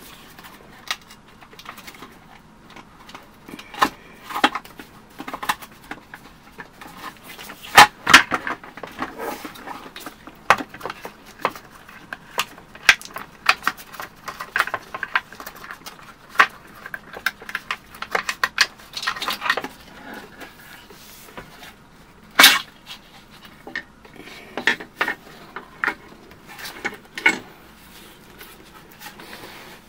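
Irregular clicks, knocks and clatter as the underside cover plate of a Segway Ninebot F40 electric scooter's battery compartment is pried loose and lifted off. The loudest knocks come about eight seconds in and again a little past twenty-two seconds.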